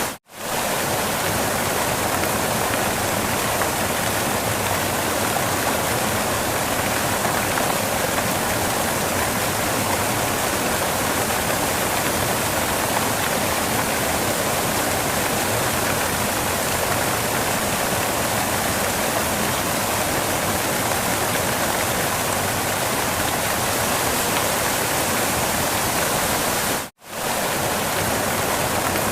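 Waterfall: a steady, even rush of falling water. It cuts out for an instant twice, just after the start and again near the end.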